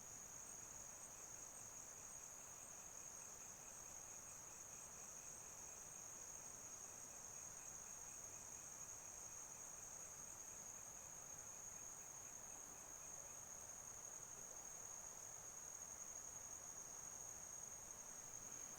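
Faint, steady, high-pitched chirring of insects such as crickets, holding one unbroken tone, over a low background hiss.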